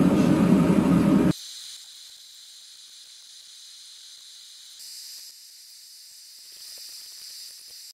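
Gas forge burner running with a loud, steady roar that cuts off abruptly just over a second in. Only a faint, steady high hiss is left after it.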